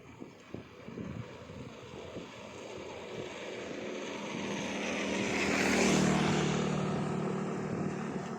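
An engine passing by, with a steady low hum that grows louder to a peak about six seconds in and then fades away.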